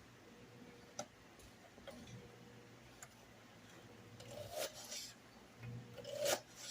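Faint ticking about once a second over a low steady hum, then a few rough scraping sounds in the last couple of seconds.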